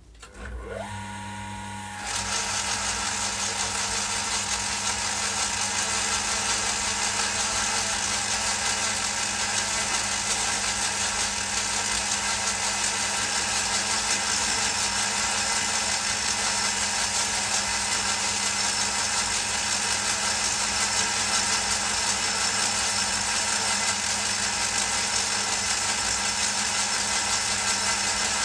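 Old metal lathe starting up: a rising whine as it spins up about half a second in, then from about two seconds the spindle, chuck and gears run at a steady loud whine with a noisy rattle.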